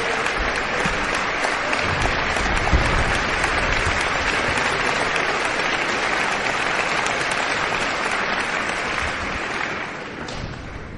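Concert hall audience applauding, the applause dying away about ten seconds in.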